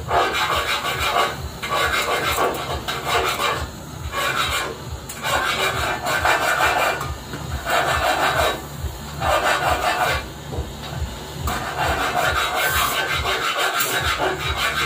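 Repeated rasping scrapes, each about a second long with short breaks between, of a hand tool worked along the seam of a stainless steel sheet-metal letter, over the steady hiss of a lit gas torch.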